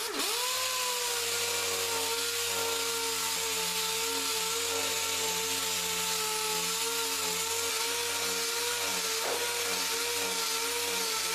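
Air-powered 6-inch dual-action palm sander spinning up at the start and then running steadily, a high whine over a loud hiss, as it sands cured short-strand fiberglass filler on a welded steel radiator support.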